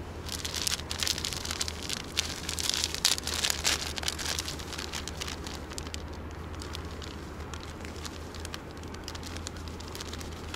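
Dry, crumbly fishing groundbait pouring from a crinkling plastic bag into a bucket: a dense crackling patter, thickest in the first few seconds and thinning to a light rustle.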